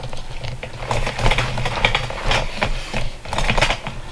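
Irregular rustling and clicking of a Y-strap being handled and fitted around the head, over a steady low hum.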